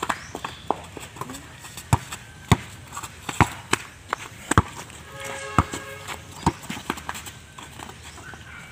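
Irregular sharp knocks and thuds of a basketball game on a dirt court: the ball bouncing and striking a wooden backboard, and players' footsteps. A brief pitched sound comes in about five seconds in.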